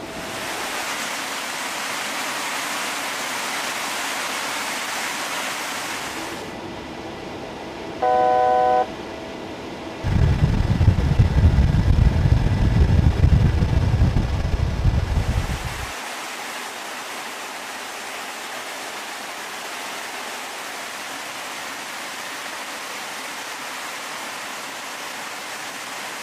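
Rushing airflow and jet noise of C-17 Globemaster III transports in flight. A brief tone sounds about eight seconds in, followed by about six seconds of heavy, uneven low rumble before the steady rushing returns.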